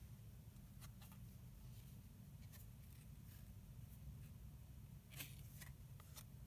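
Near silence: a few faint ticks and rustles of baseball trading cards being handled and sorted, over a low steady room hum.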